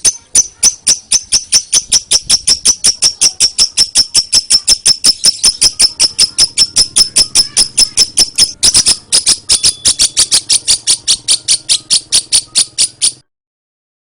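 Lovebird giving its 'ngetik' (typing) song: a fast, even string of sharp, high chirps, about five a second, that stops abruptly near the end.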